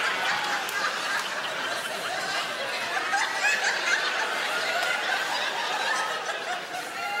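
Large theatre audience laughing: many voices chuckling and laughing at once, easing off slightly near the end.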